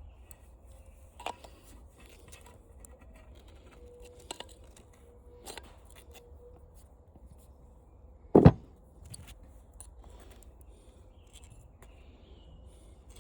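Light clicks of small metal parts being handled during disassembly of a floor fan motor, with one sharp knock about eight seconds in as a stuck part is tapped to work it loose.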